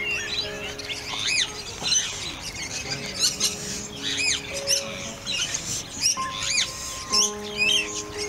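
Sharp, arched bird calls repeated about once a second, over soft background music of held notes.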